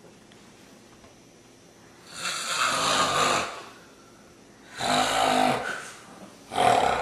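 A person snoring: three loud snores, the first about two seconds in, each lasting about a second, a low rasp with breathy hiss.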